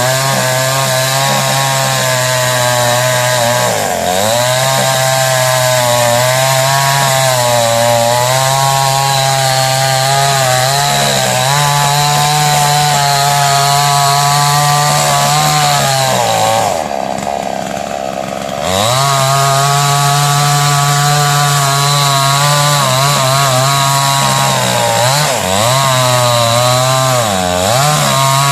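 A 52cc two-stroke chainsaw with a 20-inch bar running at high revs while cutting into a thick tree trunk. Its pitch dips briefly under load a few times, and past the middle it drops to idle for about two seconds before revving back up.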